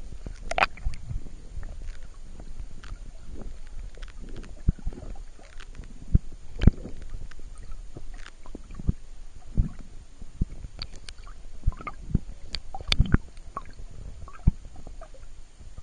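Muffled underwater sound picked up by an action camera in its waterproof housing: a low steady rumble with irregular knocks and clicks, loudest about half a second in, near the middle and near the end.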